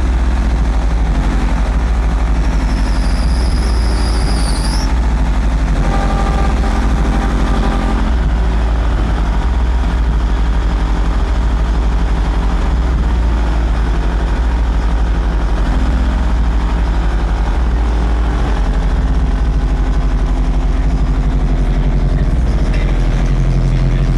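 Car-audio subwoofers playing a loud, steady, very deep bass tone with droning overtones. A brief high squeal sounds a few seconds in.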